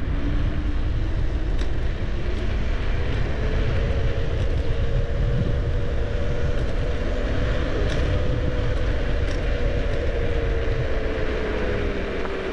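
Wind rumbling on the microphone of a bicycle rolling down a street, with a steady humming tone that slowly rises in pitch and then falls away near the end.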